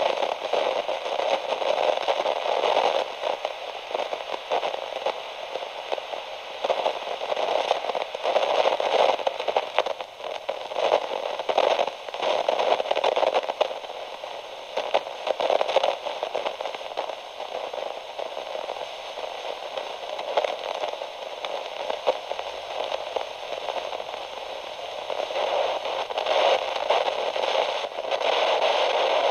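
Radio static: dense crackling hiss confined to a narrow, telephone-like band, swelling and fading every few seconds like an untuned receiver.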